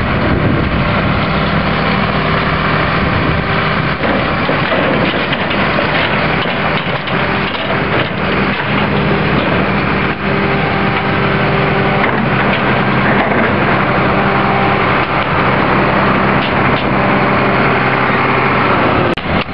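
Volvo garbage truck's diesel engine running steadily to drive the McNeilus side-loader's hydraulics, with a few knocks and clatter from trash and the cart at the hopper.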